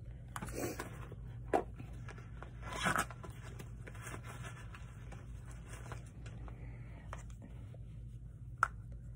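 Small objects being handled at close range, making light scrapes and rubbing and a few short clicks, the loudest near the middle, over a steady low hum.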